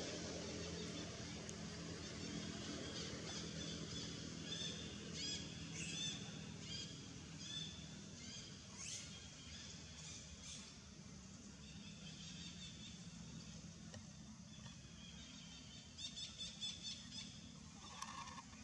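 Quick series of short, high-pitched animal chirps, loudest near the end, over a faint low hum that fades out around the middle.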